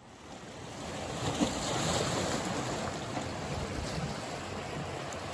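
Lake waves washing against the shore with wind, a steady rush that fades in over the first couple of seconds.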